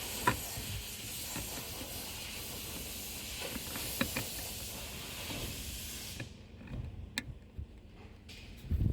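A steady hiss that cuts off suddenly about six seconds in, with a few sharp clicks of an electrical connector being handled and plugged in.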